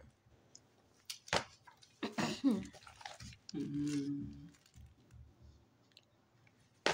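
Quiet voices in a small room: a short murmured or whispered phrase, then a brief held "hmm" hum about halfway through, with a few sharp clicks.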